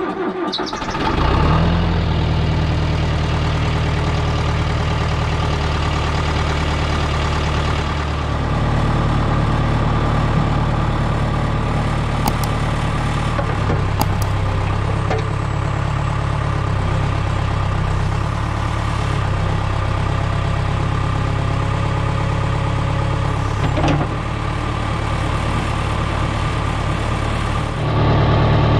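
John Deere 410B backhoe loader's diesel engine, just started, settling into a steady idle. It grows louder near the end.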